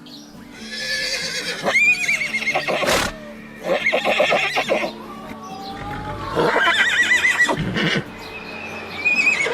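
Horses neighing: three whinnies with a quavering pitch, about two seconds in, around seven seconds, and again near the end, with shorter rough calls in between.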